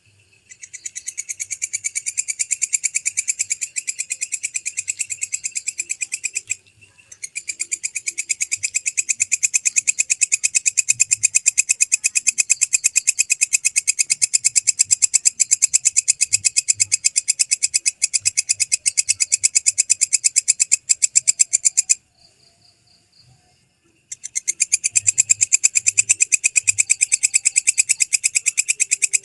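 A belalang kecek (walang kecek) katydid stridulating in long, loud, high-pitched trains of rapid, even pulses. The song breaks off briefly about six seconds in, and again for about two seconds near the end.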